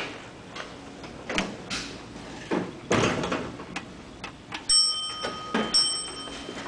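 Elevator car with scattered knocks and clicks, then an electronic chime that sounds twice, about five seconds in.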